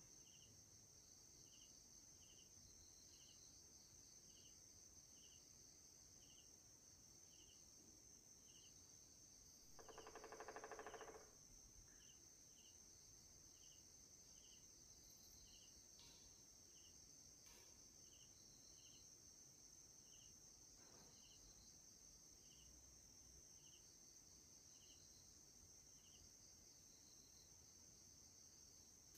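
Faint cricket chirping: short chirps about every two-thirds of a second over a steady high hiss. About ten seconds in, a brief, louder buzzing rattle lasts about a second and a half.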